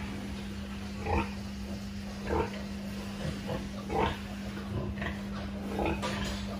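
Newborn piglet squealing and grunting in short bursts, about one a second, while being handled. A steady low hum runs underneath.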